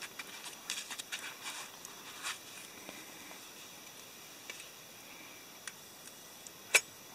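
Soft rustling and small clicks of hands at work: gloves being pulled off, then freshly baked biscuits lifted out of a small metal camp pan. One sharp click near the end.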